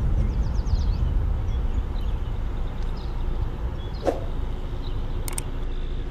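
Steady low rumble of a car's engine and road noise heard from inside the cabin while driving slowly. A few faint high chirps come near the start, and a couple of sharp clicks come about five seconds in.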